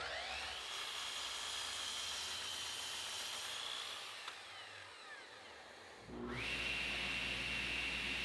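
A miter saw's motor spins up and runs steadily, then winds down about four seconds in. About six seconds in, a SawStop table saw's motor starts, rises to speed and runs steadily.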